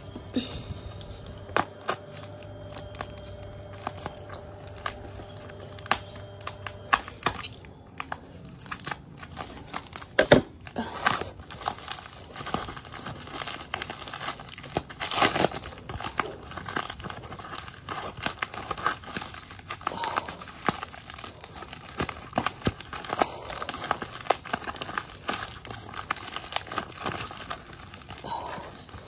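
Plastic and foam packing wrap crinkling and crackling as it is unwrapped by hand from a weightlifting belt's metal lever buckle. The crackling gets busier and louder from about ten seconds in.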